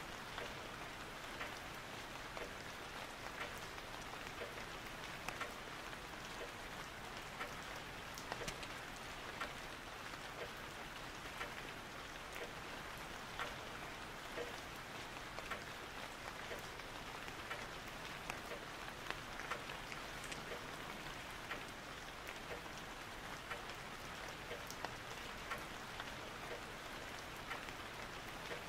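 Steady rain falling on a surface: an even hiss dotted with many small, irregular drop ticks.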